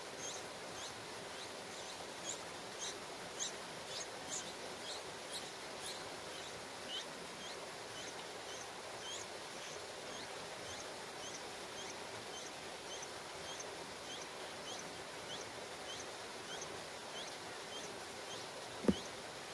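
Bulbul nestlings begging while being fed: short, high chirps, about two a second, each dropping slightly in pitch, over a steady hiss. A single dull thump near the end.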